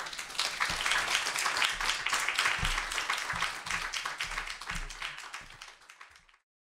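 Audience applauding, dense clapping that dies away over about six seconds, then the sound cuts off abruptly.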